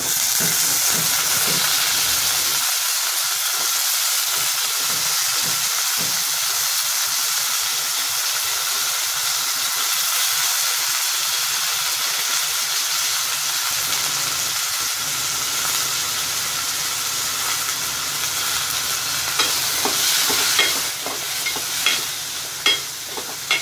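Freshly added wet vegetables (brinjal, drumstick, beans and potato, kept in water after cutting) sizzling in hot oil in an aluminium pot: a loud, steady frying hiss. Over the last few seconds a spoon clinks and scrapes against the pot as they are stirred.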